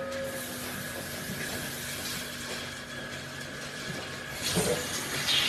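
Automatic milking robot running under a cow: a steady mechanical hum with a faint hiss. A few clicks come near the end as the robot arm moves, and a louder hiss begins just before it ends.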